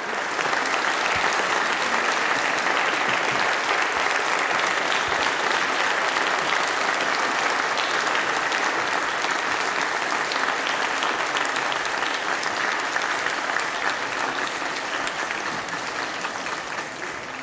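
Sustained applause from many people clapping in a large chamber, steady for most of the time and gradually dying down near the end.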